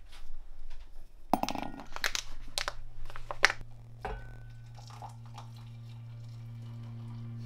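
Glass mugs and a metal kettle being handled: a run of sharp clinks, knocks and crinkly rustles over the first four seconds. From about two seconds in, a steady low hum comes in and slowly grows louder.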